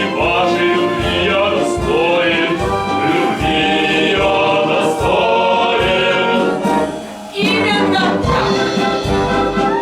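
Musical-theatre song: singing voices with orchestral accompaniment. The music drops away briefly about seven seconds in, then comes back at full level.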